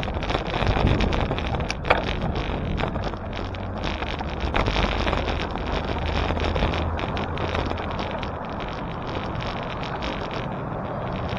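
Wind rushing over the microphone while riding a bicycle, mixed with the noise of street traffic. A sharp click comes about two seconds in.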